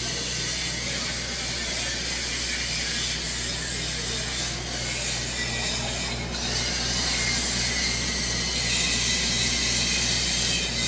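Steady crackling hiss of electric arc welding, over a low machine hum.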